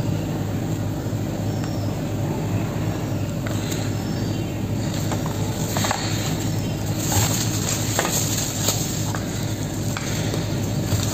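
Plastic and foil clay-packet wrapping rustling and crinkling as it is handled, loudest around the middle, over a steady background hum.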